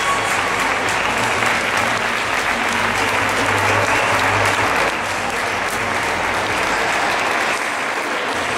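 Audience applauding steadily, a dense continuous clapping that eases a little about halfway through.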